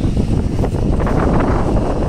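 Passenger train running along the track, heard from an open coach doorway: steady running noise of wheels on rails, with wind buffeting the microphone.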